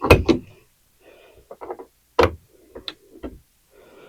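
Sharp clicks and knocks of a light switch being worked into its wall box and fastened: a quick cluster at the start, then single knocks about two, three and three and a half seconds in.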